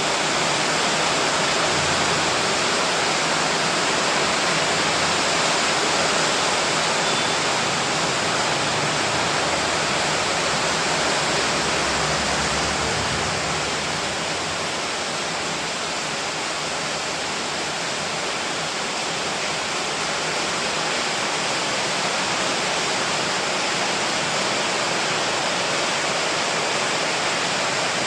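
Heavy rain falling steadily, an even dense hiss with no single drops standing out, easing very slightly about halfway through.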